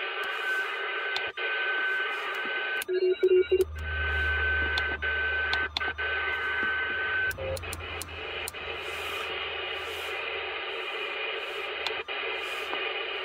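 A President McKinley CB radio's speaker in upper-sideband mode giving out receiver static and hiss, with a steady heterodyne whistle that cuts off suddenly about seven seconds in. Brief chirps come near three seconds in, and sharp clicks come now and then.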